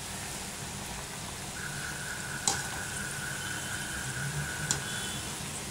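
Chana dal vadas deep-frying in hot oil over a medium flame: a steady sizzle and bubbling, with two light clicks as the wire mesh skimmer turns them in the pan.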